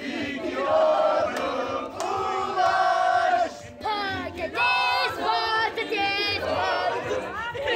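A group of people shouting together in long, drawn-out yells. From about four seconds in, a child's high-pitched yelling stands out.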